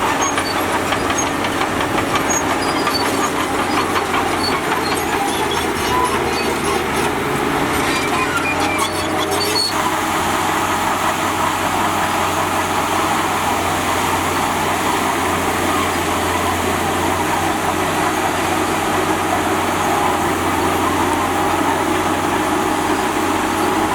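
Diesel engine of heavy earthmoving machinery running steadily under load, with a fine rapid clatter over it that stops about ten seconds in, leaving a steadier low hum.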